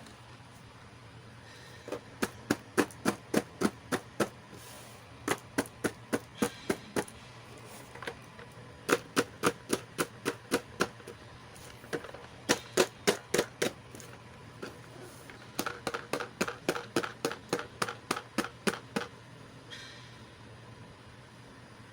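Hands working plastic toy packaging and pieces: five quick runs of sharp clicks, about three to four a second, with short pauses between them.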